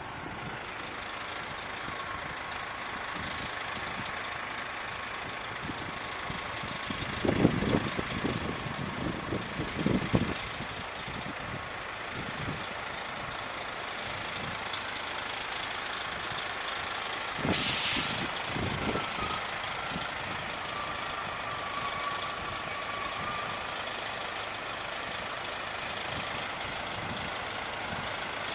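City buses' engines running steadily, with one short, sharp air-brake hiss just past the middle. A few low thumps come about a quarter of the way in.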